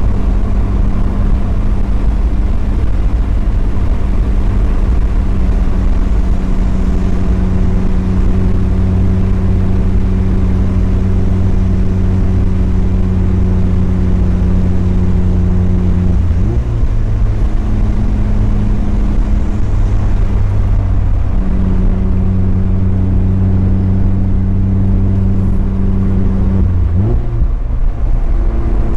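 Mazda Miata's engine droning steadily under a cruise over tyre and road noise, heard from inside the car. Its pitch shifts up about halfway through, settles back down, and rises again with a short upward sweep near the end, as the revs change.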